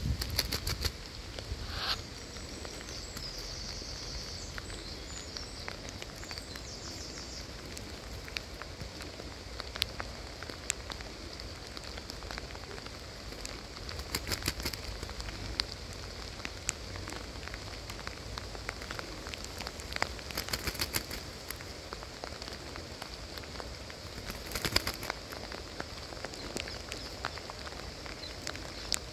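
Steady rain falling, an even hiss with scattered sharp ticks of drops close by and a few short flurries of rapid ticking.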